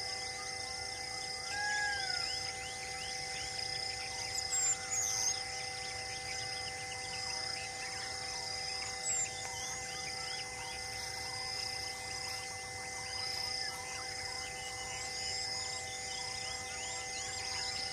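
Forest ambience: insects buzzing steadily, one of them trilling in regular pulses, with birds chirping throughout and a short arched whistled call about two seconds in.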